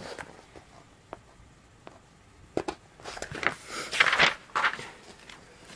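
Page of a picture book being turned: a few faint ticks, then paper rustling for a second or two from about three seconds in.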